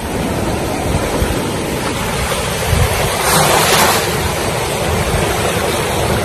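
Sea surf washing in over shallow water, a steady rush that swells about three seconds in as a wave comes through, with wind buffeting the microphone.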